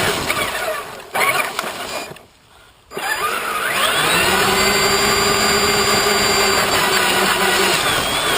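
Traxxas Summit RC truck's electric motor and gear drivetrain whining; it drops away briefly about two seconds in, then rises in pitch and holds steady as the truck drives on.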